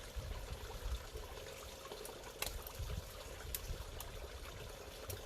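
Bubbling water trickling steadily, with a few sharp clicks over it.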